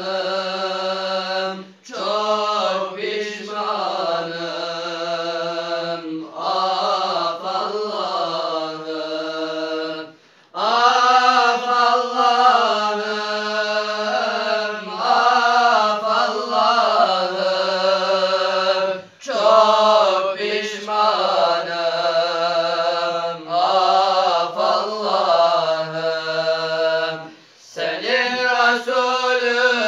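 Young male voices singing an unaccompanied Islamic religious chant, with long held, ornamented notes and short pauses for breath about every eight to nine seconds.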